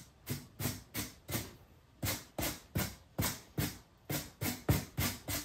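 A stiff-bristled paintbrush dry-brushing across painted insulation foam, in short scrubbing strokes about three a second, with a brief pause about one and a half seconds in. The brush is nearly dry of paint, and too stiff for the job.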